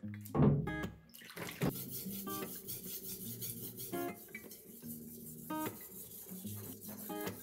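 Kitchen knife edge scraping back and forth on a wet coarse 400-grit whetstone, a steady rasping hiss as the bevel is ground. About half a second in, a loud knock with a splash of water.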